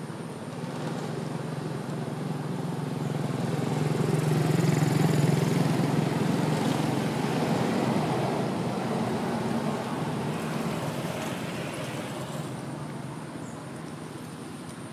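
A motor vehicle passing at a distance: a low engine rumble that swells to its loudest about five seconds in, then slowly fades away.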